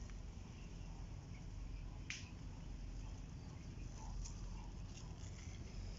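Quiet outdoor background with a single sharp click about two seconds in, and a few faint soft sounds after it.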